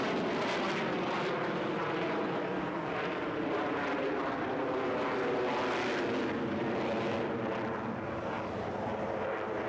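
Military jet flying a display pass overhead: a continuous jet engine noise with a steady whine, easing slightly later on.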